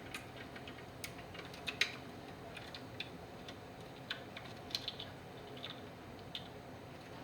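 Irregular light clicks and taps of a 280ZX turbo ECU being fitted into place by hand, with a sharper knock just under two seconds in.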